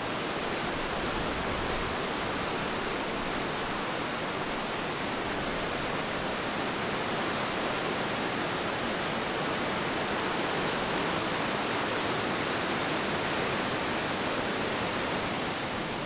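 Waterfall rushing steadily: white water of a roughly 100-foot cascade pouring over rock into a deep pool.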